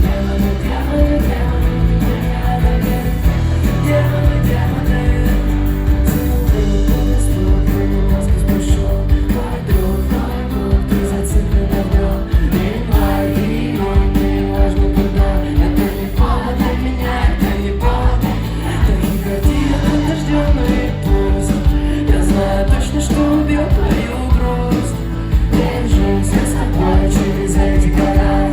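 Live acoustic performance of a rock song: a singer's lead vocal over guitar and band accompaniment, loud and continuous.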